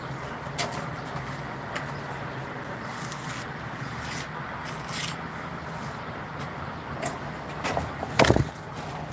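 Scattered knocks and scrapes of handwork, over a steady low hum, with a louder cluster of knocks about eight seconds in.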